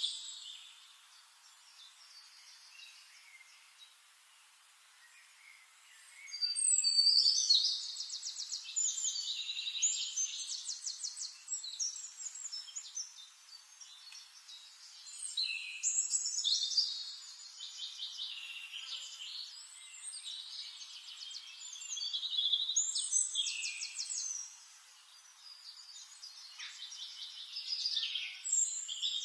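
Forest songbirds singing: phrases of quick trills and chirps, high-pitched, coming every few seconds after a quieter first six seconds.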